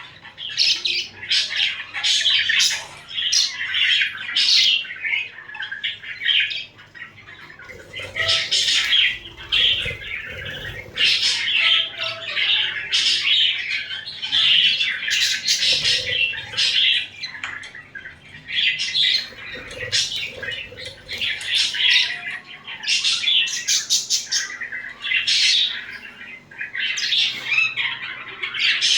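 Pet budgerigars chattering and chirping: fast, scratchy warbling calls in runs of a few seconds, broken by short lulls.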